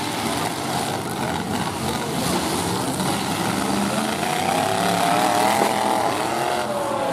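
Several demolition-derby pickup truck engines running together. From about four seconds in, one engine revs up and holds high before dropping back near the end.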